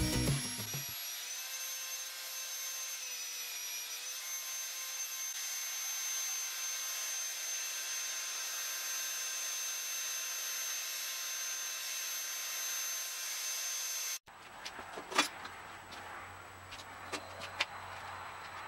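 Handheld belt sander, mounted upside down in a vise, running steadily with a high-pitched whine as a pallet-wood slat is passed over its belt. Its pitch dips slightly a couple of times as the wood is pressed on. It cuts off abruptly, followed by a few light knocks of wooden slats set down on concrete.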